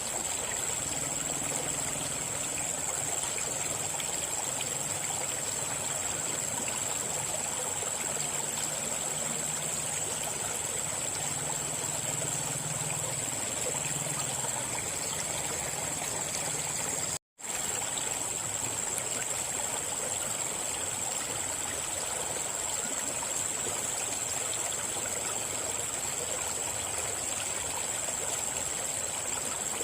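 River water flowing and rushing steadily, with a steady high-pitched tone above it. The sound cuts out for a split second about 17 seconds in.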